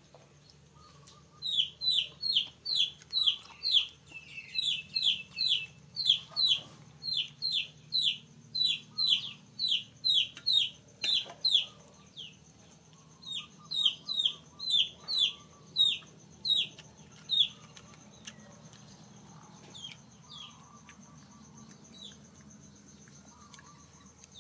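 Chick peeping loudly over and over, about two short falling peeps a second, which thin out to an occasional peep after about seventeen seconds.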